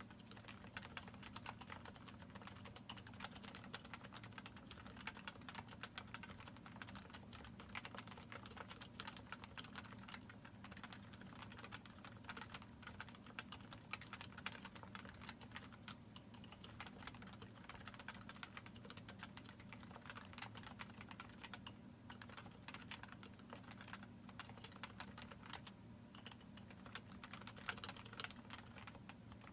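Continuous fast typing on a Leopold FC660C electro-capacitive (Topre-type) keyboard with variable key weighting, PBT keycaps and unlubricated sliders and stabilizers: a quick, unbroken stream of key strokes.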